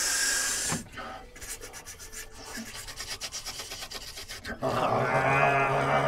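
A man's nose taking a long, loud sniff, then a fainter run of short quick sniffs, like a wine taster nosing a glass. About two-thirds of the way in comes a drawn-out, steady 'mmm' hum.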